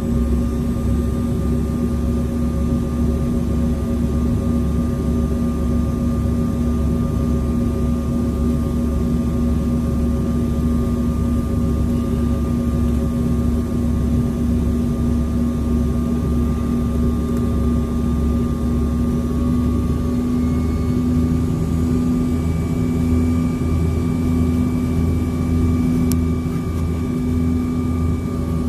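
Steady cabin noise of a jet airliner in descent: a continuous low rumble of engines and airflow with a constant hum. A faint higher whine joins about two-thirds of the way in, and there is a single light click near the end.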